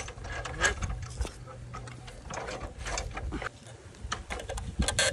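Irregular mechanical clicking and rattling, like metal parts being worked by hand, over a low steady engine rumble that drops away about three and a half seconds in.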